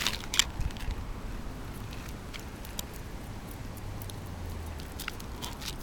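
A Shiba Inu puppy's paws and claws scuffing and pattering on asphalt: a cluster of short, sharp taps about half a second in, a few lighter taps near the end.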